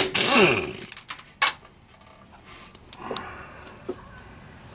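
Hand-tool work on the camshaft gear bolts of a small-block Chevy 350: a short, loud burst that falls in pitch as it stops right at the start, then scattered light metallic clicks and taps.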